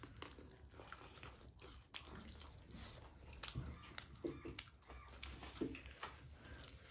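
Faint chewing and mouth sounds of a person eating, with irregular clicks and smacks.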